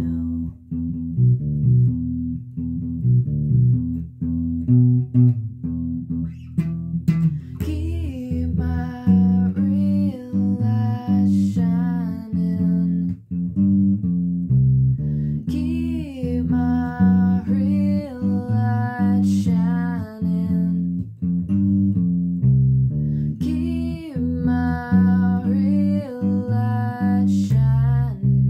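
Electric bass guitar plucked in a steady bassline on its own for the first few seconds, then a woman's voice singing over it from about eight seconds in, in phrases that come and go.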